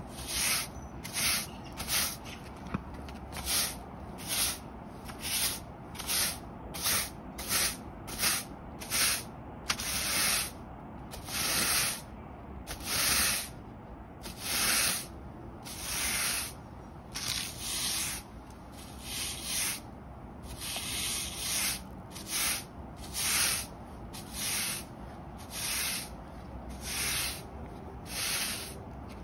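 Hard-bristle push broom sweeping dirt across concrete paving blocks in a steady run of scraping strokes: quick short ones at first, a few longer strokes in the middle, then about one stroke a second.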